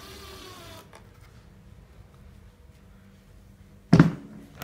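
A quiet room, then a single loud thump about four seconds in, followed by a smaller knock, as things are handled on the workbench.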